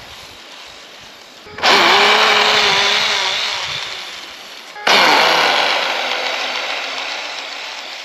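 RC snowmobile's brushless electric motor and geared track drive whining under throttle, starting suddenly about one and a half seconds in and again near the middle, each time fading off as the sled pulls away.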